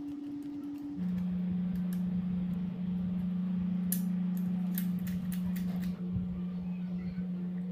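Background music of long held low notes that change pitch every second or so, with a few light metallic clicks around the middle as small steel linkage parts and pins are handled.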